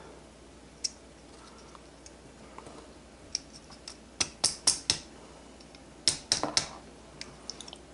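Small sharp clicks and taps of a precision flathead screwdriver working against a fishing reel's side plate as it pries out the bearing's retaining clip. One click about a second in, then quick clusters of clicks around four to five seconds and again around six seconds, with a few faint ticks near the end.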